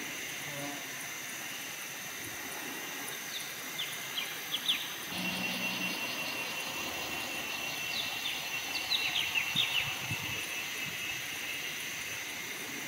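Forest ambience: insects droning steadily, with short, sharp bird chirps in two bursts, around four seconds in and again around eight to ten seconds in.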